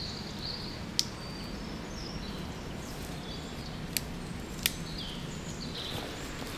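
Forest ambience: small birds chirping in short repeated calls over a steady low background, with three sharp clicks, one about a second in and two close together around four seconds in.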